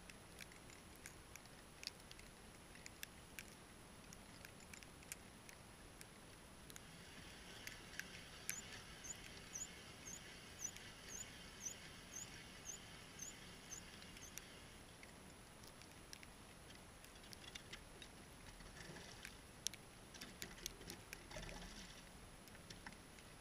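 Near silence with faint scattered clicks. Midway a faint, high chirp repeats evenly about twice a second for several seconds over a light hiss.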